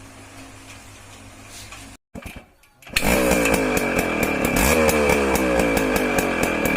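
A faint low hum, a brief cut, then from about three seconds in the motorcycle engine of a home-built weeding machine, made from an old TVS bike, starts running loudly with a fast, even rattle.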